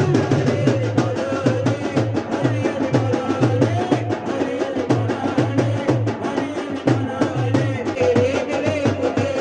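Live qawwali-style music: a man singing through a microphone over a dholak's steady beat and rhythmic hand claps.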